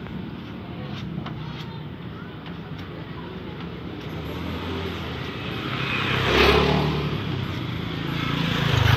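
Road traffic: a steady low engine hum, with a motor vehicle swelling loud and fading as it passes about six and a half seconds in, and another growing loud near the end.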